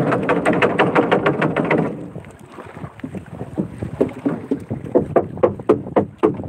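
Gill net being hauled aboard a boat by hand: a quick run of scraping and knocking for about two seconds, a quieter moment, then more irregular knocks as the mesh and the needlefish in it are handled.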